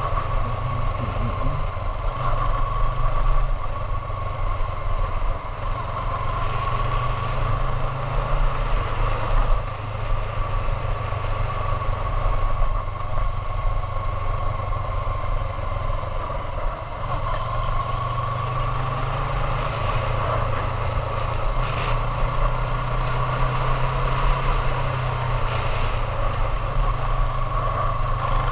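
Motorcycle engine running steadily while riding at low speed, its note rising and falling gently.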